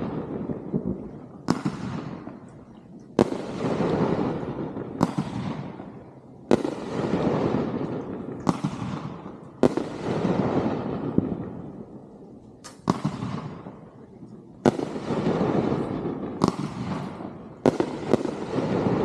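Consumer aerial fireworks bursting: about a dozen sharp bangs, one every second or two, each trailing off over a couple of seconds before the next.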